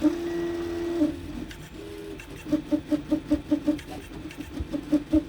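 NEMA 17 stepper motors on TMC2209 drivers in stealthChop mode, humming with a steady pitched tone for about a second, then giving a rapid string of short pitched beeps, about six a second, as they make short back-and-forth moves. It is the tonal resonance noise the owner finds strange.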